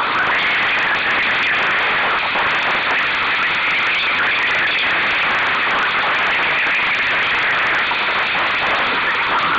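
Steady rushing of wind and water heard from on board a Solo sailing dinghy under way in choppy water.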